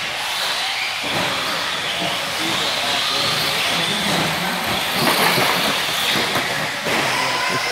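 Radio-controlled car running on a dirt track, its motor whine rising and falling with the throttle over a steady hiss of tyre and track noise.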